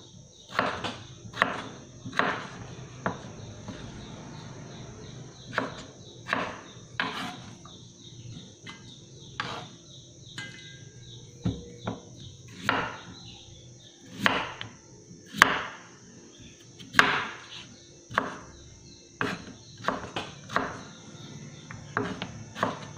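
Chef's knife slicing through peeled raw potatoes and striking a wooden cutting board: a series of sharp chops, about one a second, with a few short pauses between potatoes.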